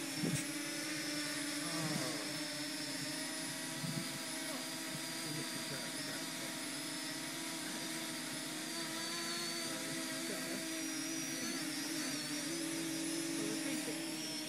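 Parrot Anafi quadcopter hovering, its four brushless motors and propellers giving a steady multi-tone whine whose pitch wavers slightly as it holds position.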